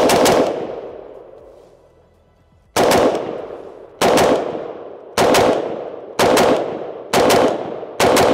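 Daniel Defense DD4 M4A1 RIII 5.56 rifle, unsuppressed and without a muzzle brake, fired in quick double taps and three-round strings. One string comes at the start, then after a pause of nearly three seconds six more follow about a second apart. Each string is followed by a long echo.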